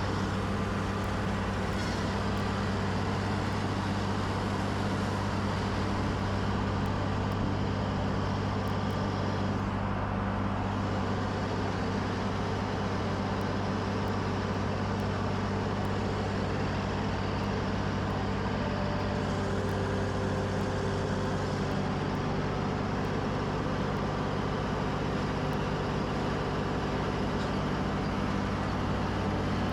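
Skid steer engine running steadily, a constant low hum.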